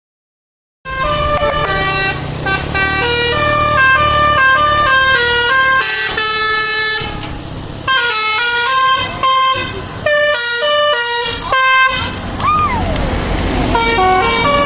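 Indonesian bus 'telolet basuri' musical air horn playing a quick tune of stepping notes, starting about a second in, with a low rumble underneath and a short gliding tone near the end.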